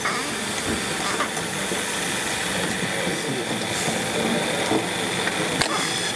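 Steady hiss and hum of stylus-assembly machinery on a factory floor, with a few sharp clicks and faint voices in the background.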